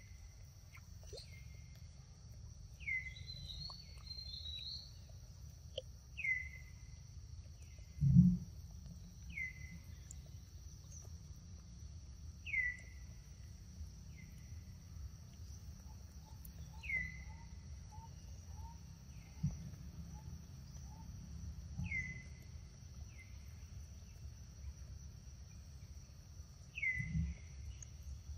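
Forest ambience: a steady high insect drone, with a bird repeating a short call that drops in pitch every second or two. A low rumble runs underneath, and there is a single loud thump about eight seconds in.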